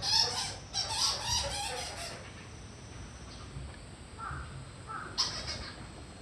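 Harsh, repeated bird calls: a quick run of calls in the first two seconds, then a few more about four to five seconds in.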